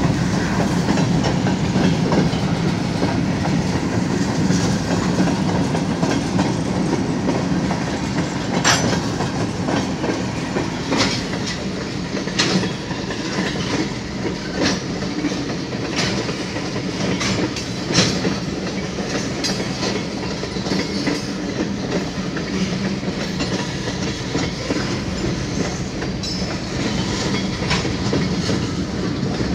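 Freight train of covered hopper cars rolling past close by: a steady rumble of steel wheels on the rails with irregular clicks and clacks as the wheels pass over the track.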